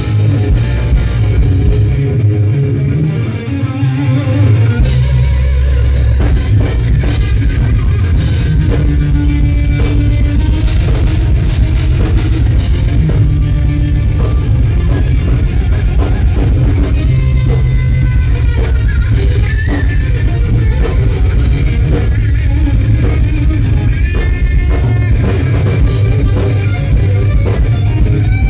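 Live rock band, loud: amplified electric guitar played over a drum kit.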